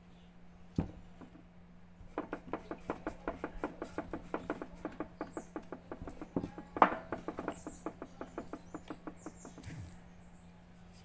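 Wooden pestle pounding in a wooden mortar to crush ingredients: a single knock, then a steady run of quick strikes, about four a second, for roughly eight seconds.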